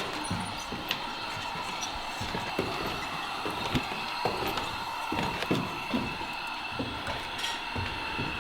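Footsteps thudding and knocking irregularly on bare wooden stairs and subfloor, with a steady high hum underneath.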